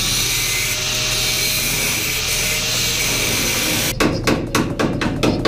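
A gas torch hissing steadily as it heats the sheet metal of a car's inner wheel well. About four seconds in the hiss stops and quick hammer blows begin, some five or six a second, beating the hot metal back for tire clearance.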